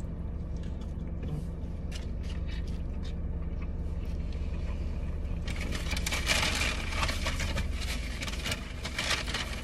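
People eating burgers: paper wrapper rustling and crackling, with chewing, loudest for a few seconds from about halfway through, over a steady low hum in the car's cabin.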